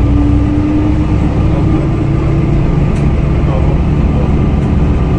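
Steady low engine rumble of a vehicle or aircraft at the airport, with a faint tone that rises slowly in pitch over the first few seconds.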